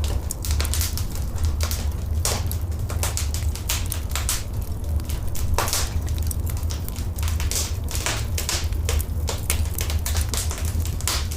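Wood fire in a fireplace crackling, with irregular sharp pops several times a second over a steady low rumble.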